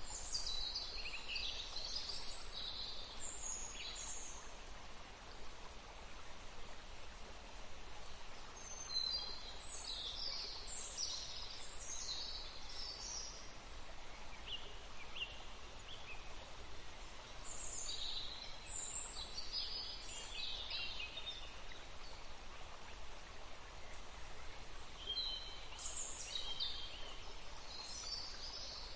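Birds chirping in four separate bouts of quick high chirps, over a steady background hum.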